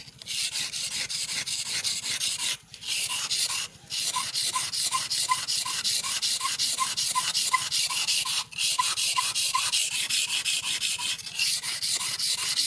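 Electric planer blade, clamped in its holder, rubbed back and forth on a wet whetstone to sharpen it: a steady gritty scraping of rapid short strokes, about four a second, stopping briefly three times.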